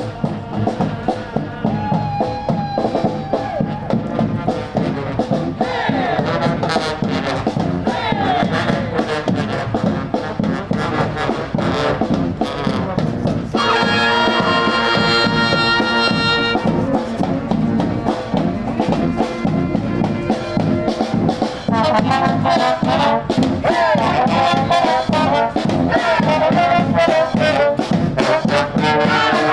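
Street brass band playing, trumpets and trombones over a steady beat, with one long high held note about halfway through.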